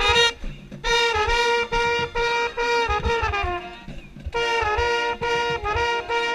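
Mellophone played close to the microphone, with the marching band's other brass around it: a string of short, separate notes, broken by brief pauses, with a falling slide in pitch about three seconds in.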